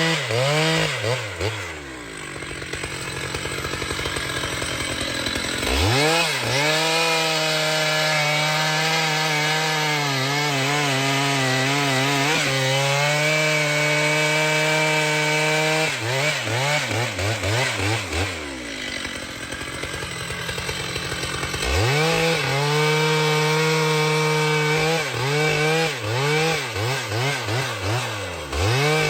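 Chainsaw cutting wood at high revs, its pitch wavering under load; twice the engine drops back to a lower speed and then climbs again.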